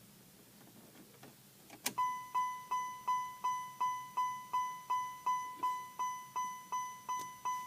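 A click about two seconds in, then a car's electronic warning chime dinging steadily at one pitch, nearly three dings a second.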